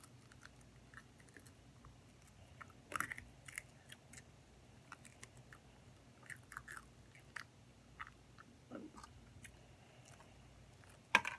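A child biting and chewing crunchy pizza crust: a scatter of short crunches and mouth clicks. The loudest bites come about three seconds in and just before the end.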